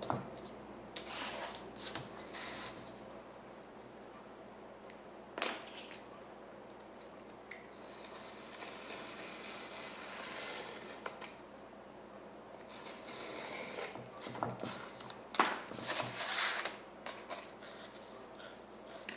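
Paper being worked with a pencil, a wooden ruler and a utility knife on a board: scraping and rubbing as an edge strip is trimmed off a paper folder along the ruler, with a sharp tap about five seconds in and a louder run of scrapes and knocks near the end.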